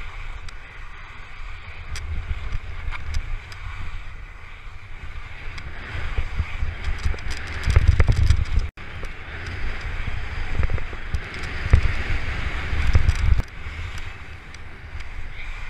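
Skis hissing and scraping over firm snow during a fast descent, with wind buffeting the microphone; the noise rises and falls in loudness and cuts out for an instant about nine seconds in.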